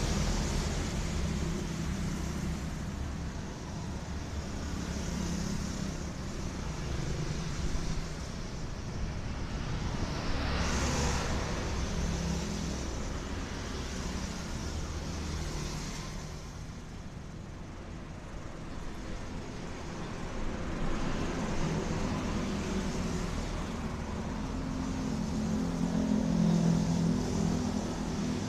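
Road traffic going by: steady engine and tyre noise, with one vehicle passing close about ten seconds in and a louder engine hum near the end.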